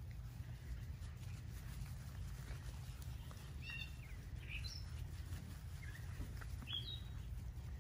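Faint outdoor ambience: a low steady rumble with a few short, high bird chirps, a cluster about halfway through and another near the end.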